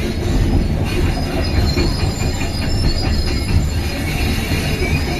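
Caterpillar hydraulic excavator running, heard from inside the cab: a steady low engine drone with thin, high squealing tones over it.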